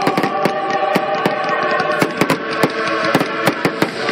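Fireworks going off in a dense barrage: many sharp bangs and crackles, several a second, with music playing underneath.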